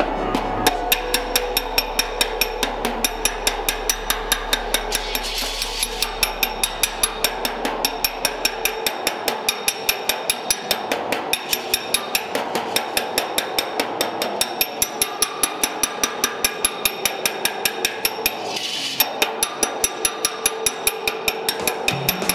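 Steady hand hammering on the roadster's steel body panel at the rear wheel well, a sharp metallic strike about four times a second as the patch panel is worked into shape.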